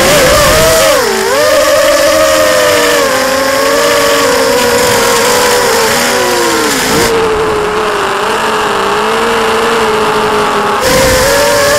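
Brushless motors and propellers of an FPV racing quadcopter whining loudly, heard from the quad's onboard camera. The pitch dips and climbs again as the pilot changes throttle through turns, about a second in and again near seven seconds.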